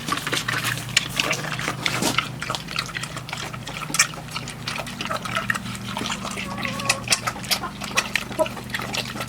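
Pigs eating watermelon, with wet, irregular chewing and smacking.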